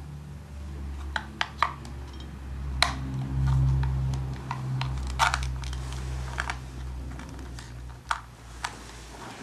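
Scattered sharp clicks and taps, about eight in all, over a steady low hum that swells for a couple of seconds in the middle.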